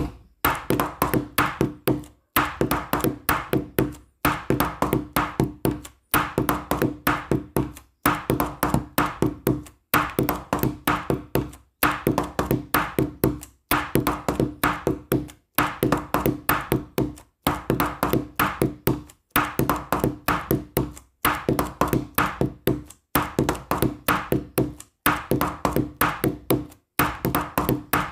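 Background music: a short, bouncy tune of quick plucked or tapped notes, a loop that repeats about every two seconds.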